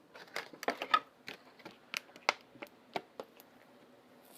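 Hard plastic pieces of a toy ship and its display base being handled: a run of irregular clicks and taps, thickest in the first second and thinning out, stopping about three and a half seconds in.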